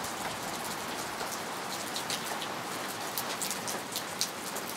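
Steady rain falling, a constant hiss with many separate drops ticking sharply close by.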